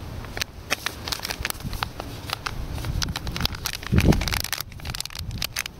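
Crinkling and crackling of a plastic seasoning sachet being handled and opened, many sharp crackles in quick succession, over a low rumble that swells briefly about four seconds in.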